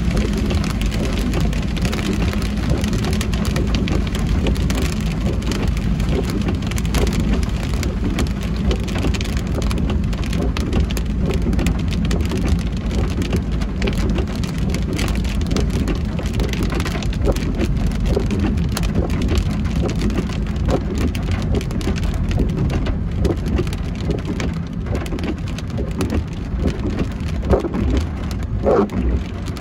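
Heavy rain falling on a moving car, dense with raindrop ticks, over a steady low rumble from the car and its tyres on the wet road. A few short, higher-pitched sounds come in near the end.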